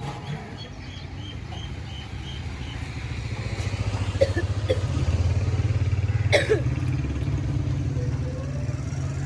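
A small motorcycle engine running close by, with a fast, even throb that grows louder from about three seconds in and stays near. A few sharp clinks sound over it around the middle.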